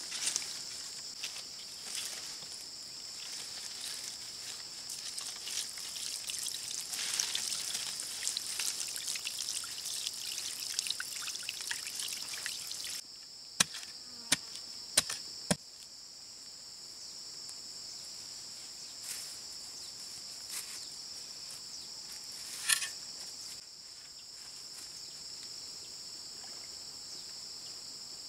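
Steady high-pitched insect chorus, a continuous shrill buzz. About halfway through, a few sharp knocks sound in quick succession, with another single knock later.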